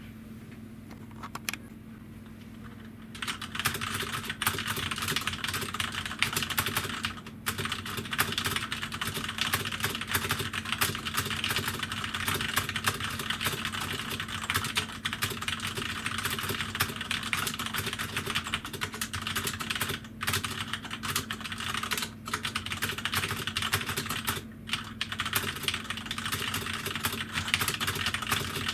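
Fast continuous typing on a Corsair K65 mechanical keyboard with Cherry MX Red linear switches: a dense run of key clicks that begins about three seconds in after a couple of single clicks, with a few brief pauses.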